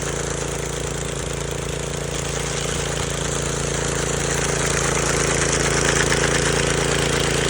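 An engine running steadily at constant speed, with a continuous mechanical drone that grows slightly louder in the second half.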